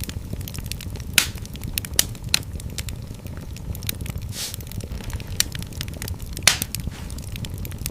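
Fire burning in a fireplace: a steady low rumble of flames with scattered sharp crackles and pops, two louder pops about a second in and late on, and a brief hiss midway.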